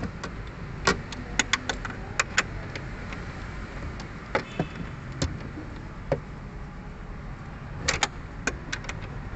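Sharp metal clicks and clinks of a hand wrench being worked on a fuel filter bracket bolt, coming irregularly in short clusters, a few close together near the end.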